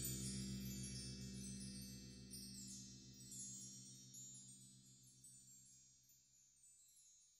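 Bell-like chime tones ringing and slowly dying away, fading to silence by the end.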